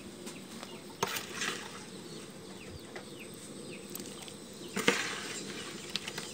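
Pieces of fish being slid from a bowl into a pot of boiling water and stirred with a metal ladle: a few knocks of the ladle against the steel pot, the loudest about five seconds in, over a low bubbling.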